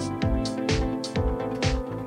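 Background music with a steady beat: a kick drum about twice a second, sharp high percussion hits between the kicks, and held synth tones.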